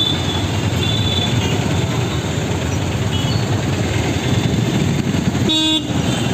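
Dense street traffic of autorickshaws and motorbikes: a steady engine and road rumble with scattered short horn toots, and one louder horn blast about five and a half seconds in.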